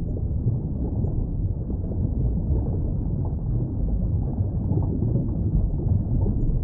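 Steady low, muffled rumble with no distinct calls, beats or voices.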